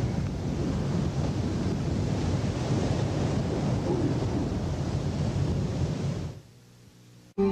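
Steady rushing wind noise on an outdoor microphone, which fades out about six seconds in.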